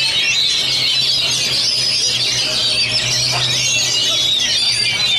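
Several caged oriental magpie-robins (kacer) singing at once: a dense, continuous chorus of rapid, high whistled phrases, over a low steady hum.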